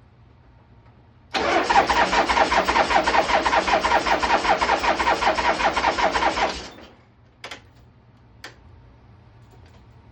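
Harley-Davidson Shovelhead V-twin being cranked over on its electric starter for about five seconds, in a fast, even chugging rhythm that starts suddenly and stops without the engine catching. It will not fire because it is short of fuel. Two brief clicks follow.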